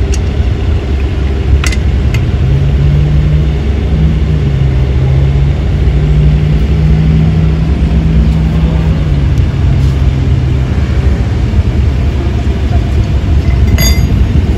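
Steady low rumble of a motor vehicle engine, with a hum that rises and falls over several seconds. Two sharp metallic clicks come through, one near the start and one near the end.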